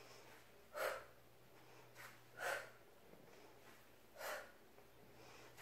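A woman breathing out sharply three times, once on each crunch, each exhale short and breathy and a little under two seconds apart.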